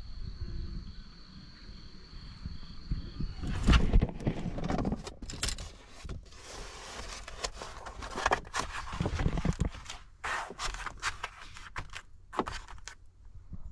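A steady high insect trill over a low outdoor rumble, broken off about four seconds in by a run of irregular close scrapes and knocks that go on to the end.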